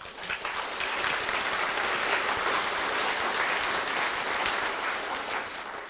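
Audience applauding: many people clapping, building up in the first second and dying away near the end.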